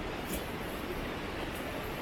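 Steady low rushing noise with a couple of faint light ticks over it.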